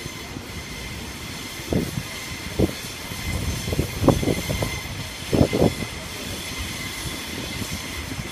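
Waratah electric suburban train running over the tracks, a steady rumble with faint high steady tones and several short knocks from the wheels about two, four and five and a half seconds in.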